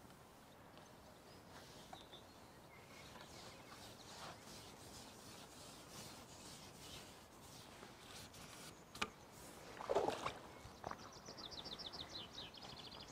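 Faint lakeside ambience with birdsong, ending in a rapid high bird trill. A sharp click and a short knock break in about two-thirds of the way through.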